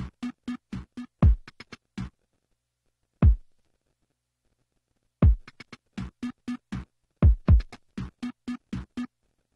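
Electronic drum-machine beat played back on its own: deep kicks that drop in pitch and short pitched hits at about four a second. The pattern stops about two seconds in, a single kick sounds in the gap, and the beat comes back about five seconds in.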